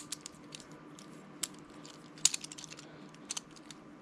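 Infinity Cube fidget toy being turned and folded in the hands, its blocks clicking and clacking together in irregular taps, the loudest just after the middle, over a faint steady hum.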